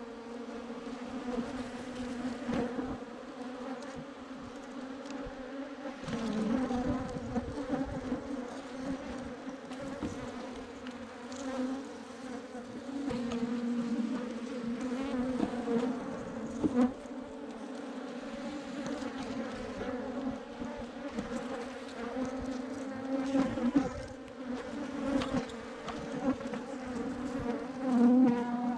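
Dense, steady buzzing of a swarm of Africanized honeybees, a low hum that wavers slightly in pitch and swells louder now and then.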